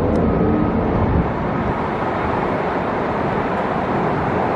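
Steady rushing noise of road traffic going by, with no single event standing out.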